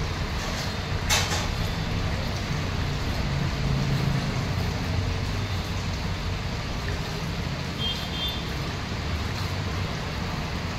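Steady low rumble of engine noise, with a single sharp knock about a second in.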